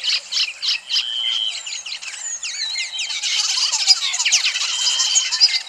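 Lesser masked weaver song: a continuous rapid chatter of squeaky chirps and sliding notes, with a held buzzy note about a second in and again near the end.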